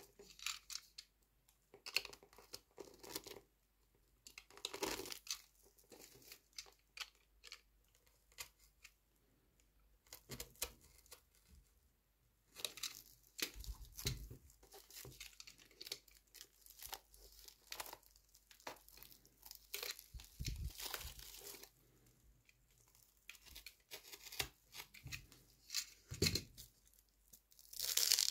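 Plastic stretch wrap crinkling and packing tape being cut and torn as a wrapped parcel is handled and opened, in irregular bursts of rustles and crackles, with a louder rip of tape near the end.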